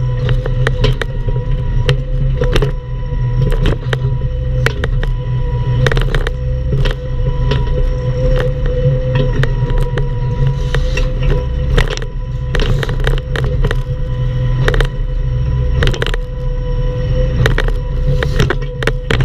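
Bobcat E10 mini excavator's diesel engine running steadily with a constant whine over its rumble, and frequent sharp knocks and clanks as the machine works at a palm stump.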